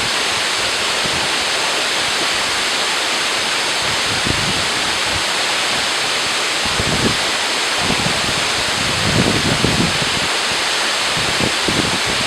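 A waterfall rushing steadily. Now and then low wind buffets the microphone, most often after the middle.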